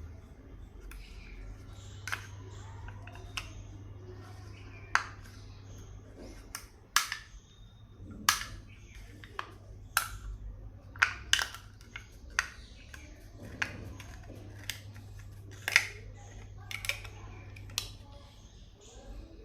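Chocolate wrappers being handled and opened: irregular sharp crinkles, clicks and snaps, over a steady low hum.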